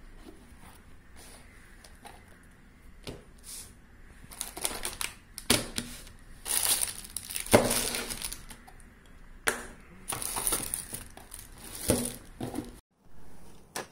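Unboxing noise: a cardboard box is opened and plastic-bagged items are lifted out and set down on a cutting mat, with irregular rustling of plastic wrap and a few light knocks.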